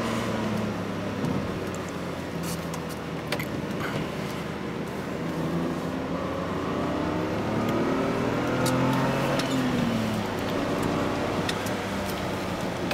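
BMW E39 525i's 2.5-litre straight-six heard from inside the cabin, over tyre and road noise. About halfway in the engine note rises in pitch for several seconds as the car accelerates, then drops back and settles.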